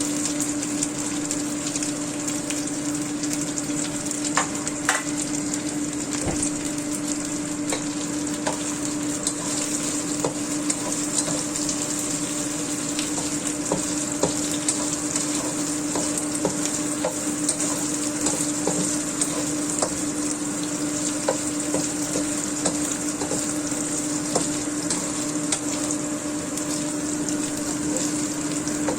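Food frying in hot oil: a steady sizzle with scattered crackles and pops, over a steady low hum.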